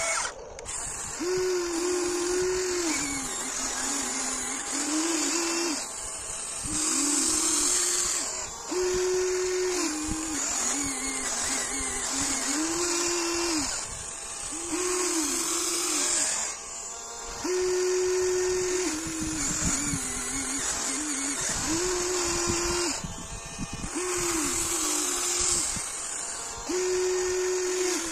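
Huina 1594 RC excavator's electric-driven hydraulic pump whining as the model digs into compacted gravel. Its pitch rises and holds each time a control is worked under load, then drops back, about a dozen times, with a high hiss over it.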